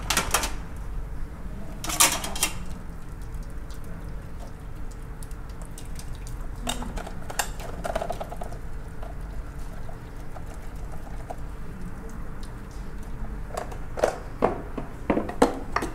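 Water running and dripping off a whole steamed lobster as it is lifted out of a stainless steel steamer basket, with a few sharp clinks and knocks of the metal pot and lid.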